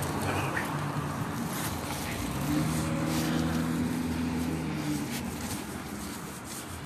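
Car traffic on the street: the noise of a passing car fades away, then a steady low engine hum from a car runs from about two and a half to five seconds in.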